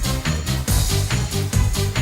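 Background electronic music with a steady beat, about two bass hits a second.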